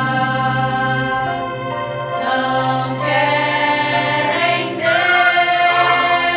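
A choir singing long held notes over orchestral accompaniment, part of a Christmas cantata.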